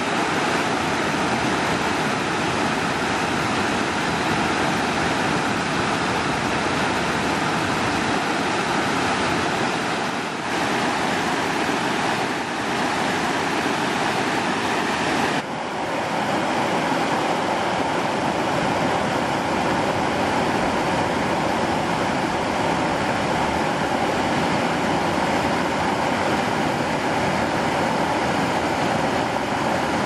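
Water rushing over a rocky cascade and small waterfall: a steady, even rush of flowing water, changing slightly in tone about ten and fifteen seconds in.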